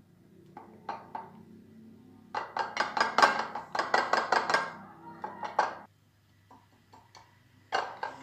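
Quick taps and clinks on a glass baking dish as floured chicken pieces are tossed and shaken to knock off loose flour (maida) for a crumb-like coating. A dense run of taps starts about two seconds in and lasts about three and a half seconds, with a few scattered taps near the end.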